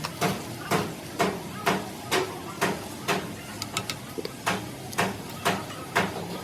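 Regular strikes on metal, about two a second, each with a short ring, typical of steady hammering on a gearbox part.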